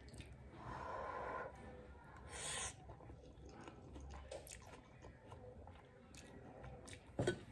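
Instant noodles slurped off a fork, with a short hissing suck between two and three seconds in, then quiet chewing with small clicks and a sharp knock near the end.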